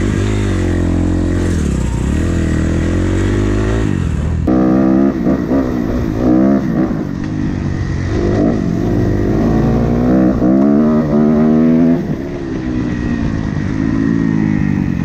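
Dirt bike engines revving as the bikes ride off, the pitch climbing and dropping again and again as they rev up and shift.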